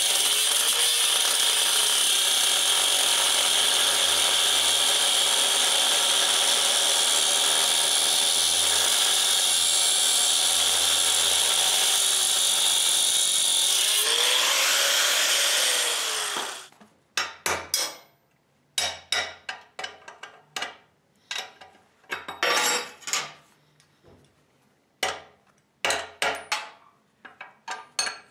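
Grinder with a thin cutoff wheel cutting through a tack-welded grade 8 steel bolt, with a steady grinding of wheel on metal. About 16 seconds in it is switched off and winds down. A string of short, sharp metal knocks follows as the cut bolt is worked loose.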